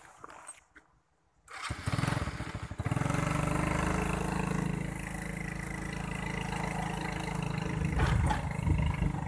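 A small motorbike engine starts abruptly about a second and a half in, then keeps running steadily with a fast low pulse.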